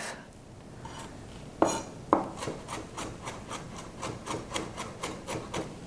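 Chef's knife finely chopping garlic on a wooden cutting board: the blade taps the board in a quick even rhythm, about four strokes a second, starting about a second and a half in with two louder knocks.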